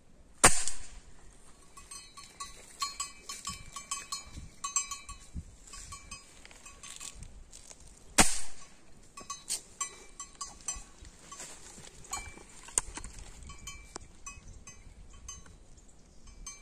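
Two shotgun shots about eight seconds apart, each a sharp crack with a short echo. Faint high chirps and light clicks are heard between them.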